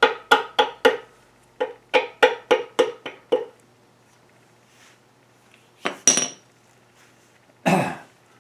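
Hammer blows on steel with a metallic ring, about three a second for the first few seconds, driving a part of a horizontal milling machine's body loose. After a pause there is a sharp metal clink about six seconds in and a duller knock near the end.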